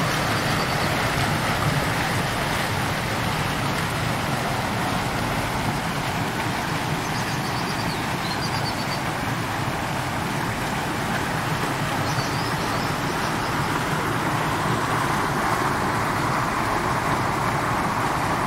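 Water from fountain jets splashing steadily into a stone basin.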